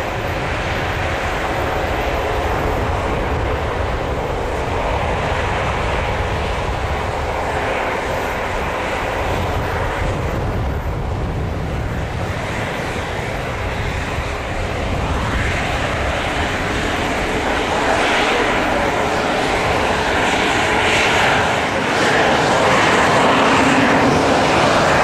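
Airbus A220-300's Pratt & Whitney PW1500G geared turbofan engines running at taxi power as the jet rolls past. The steady engine noise grows louder over the last ten seconds as it comes closer.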